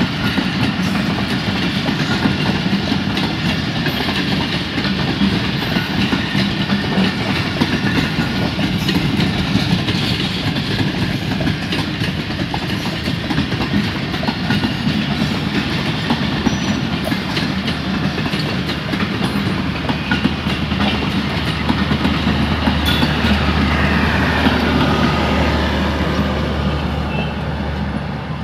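Pakistan Railways passenger coaches running past at speed, with steel wheels giving a steady rumble and a clickety-clack over the rail joints. Near the end the last coach passes and the sound begins to fade away.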